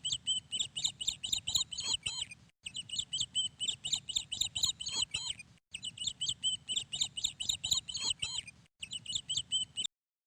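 Bird chirping in quick, high notes, in near-identical phrases a few seconds long with short breaks between them, stopping abruptly near the end.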